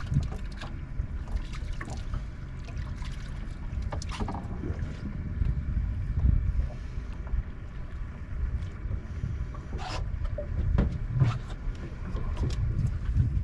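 Wind buffeting the microphone and water lapping against a small fishing boat's hull, a low uneven rumble that swells and eases, with scattered small knocks and clicks.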